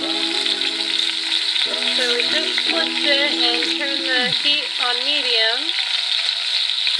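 Bacon-wrapped pork roast sizzling steadily as it sears in hot oil in an enameled cast-iron Dutch oven, under background music with a wavering melody.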